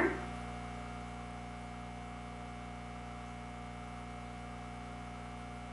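Steady background hum made of several fixed low tones over a faint hiss, unchanging throughout, with nothing else sounding.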